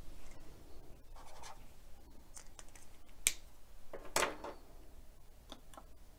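Pen writing on a paper sticky note: a few short scratchy strokes, then a sharp click a little after three seconds in and a louder rub just after four seconds, with a few small clicks near the end.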